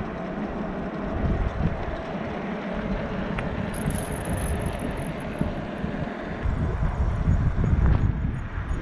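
Riding noise from a Salsa Beargrease fatbike rolling on asphalt: a steady rush and hum of the fat tyres, with wind buffeting the camera's microphone in low rumbles that grow heavier in the last couple of seconds.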